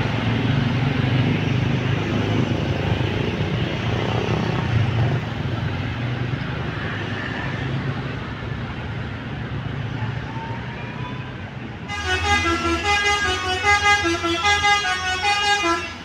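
Tour bus diesel engine running as the bus pulls away. About twelve seconds in, a basuri telolet horn on the bus plays a quick stepping multi-note tune for about four seconds, then cuts off abruptly.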